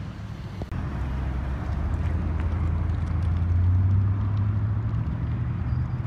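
A motor vehicle's engine rumbling low and steady, growing louder over the first few seconds and easing off slightly near the end.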